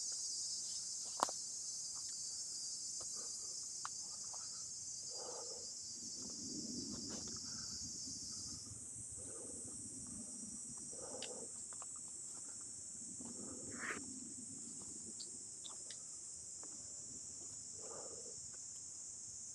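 A steady, high-pitched insect chorus, whose pitch band shifts slightly about halfway through, over the soft crunch of footsteps on dry leaf litter, with one sharp click about a second in.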